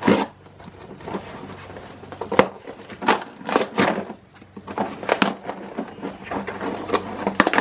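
A cardboard parcel being torn open by hand: a series of short rips and paper rustles.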